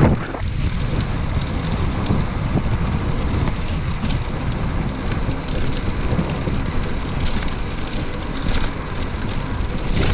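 Steady rumbling noise of wind buffeting the microphone, with rain falling.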